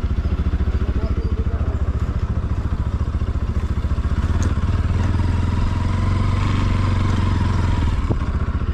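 Motorcycle engine running steadily with an even, fast putter as the bike is ridden slowly along a path.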